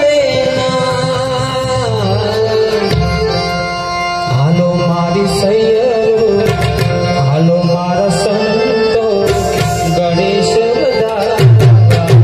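Tabla and harmonium playing a Gujarati devotional tune, with the tabla's bass drum strokes sliding up in pitch.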